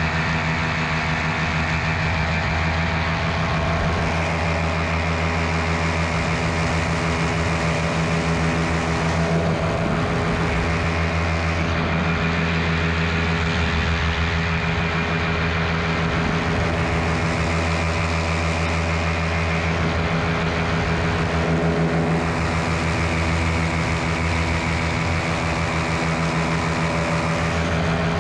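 Miniplane Top 80 paramotor's 80 cc two-stroke engine and propeller running steadily in flight.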